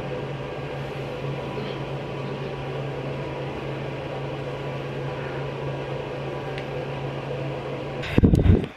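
Steady hum of a bathroom exhaust fan: a low two-tone drone under an even hiss. Near the end there is a loud, brief bump and rustle close to the microphone, and then the hum cuts off.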